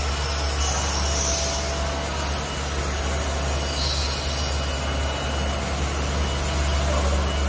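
HB3000+ vibratory stress relief exciter, an eccentric-weight motor clamped to a welded steel frame, running steadily and shaking the frame to relieve welding stress. A constant low hum with a steady noisy buzz over it.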